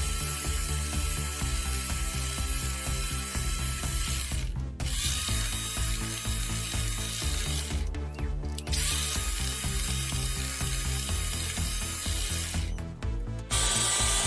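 Electric hand mixer running with its beaters in cream in a glass bowl, whipping it until thick. The steady motor whine cuts out briefly three times, at about four and a half, eight and thirteen seconds, as the mixer stops.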